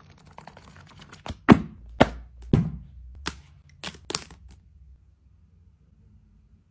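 Textbook pages riffled past a thumb, with the edges and index tabs flicking in a quick run of small ticks, then four heavier knocks and a few sharp clicks as the books and tabs are handled.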